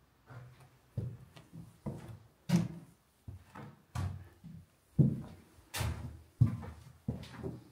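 Footsteps on a bare hard floor in an empty building, low thuds about two a second, with a couple of sharper cracks.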